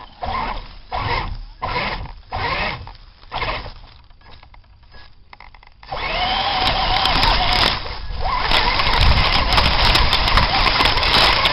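Radio-controlled monster trucks' motors revving in short bursts. After a brief lull about four seconds in, they start running continuously from about six seconds in, with a wavering whine.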